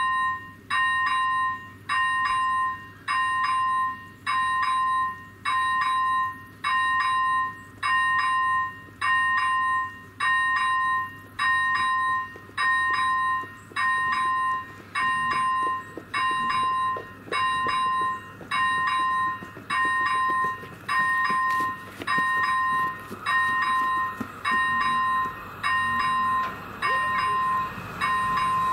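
Level-crossing electronic warning bell ringing: an even two-pitch electronic ding repeating just under once a second while the red lights flash. In the last few seconds the rising rumble of an approaching train builds under it.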